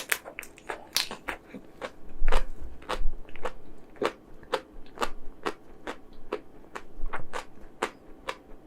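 Close-miked eating of chocolate ice cream: irregular crisp clicks and crackles of biting and chewing, several a second.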